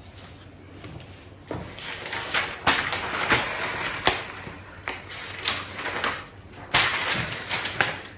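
Sheets of printed paper rustling and flapping as a stack of pages is leafed through, in a string of sharp rustles starting about a second and a half in.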